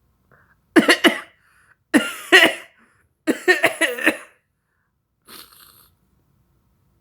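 A man coughing in three short fits of a few hard coughs each, the last fit the longest, followed by a faint breathy exhale.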